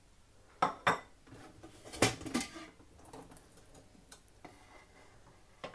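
Metal clinks and knocks of a pressure cooker pot, its lid and utensils being handled: a handful of separate strikes, the loudest about two seconds in.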